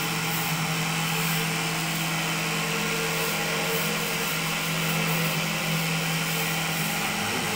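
Cotton candy machine running, its motor spinning the head with a steady hum.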